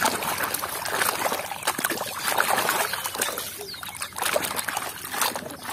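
Muddy water sloshing and splashing in a plastic basin as hands scrub a plastic toy scooter under the surface, with many small irregular splashes and drips.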